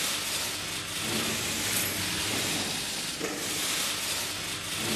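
Steady hiss of a hushed hall full of standing people keeping a minute of silence, with only faint, scattered room sounds.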